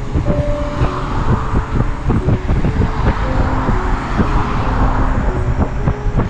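Wind buffeting and bumps on the microphone of a moving bicycle, a constant low rumble with frequent knocks, with classical music playing softly underneath.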